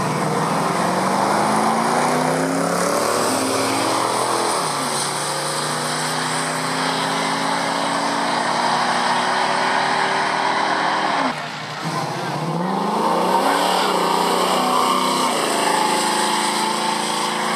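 Drag-racing car engines launching off the line and accelerating hard down the strip, the engine note climbing with a drop at each gear shift. About eleven seconds in, the sound cuts to a Camaro SS V8 accelerating past, climbing again through its gear changes.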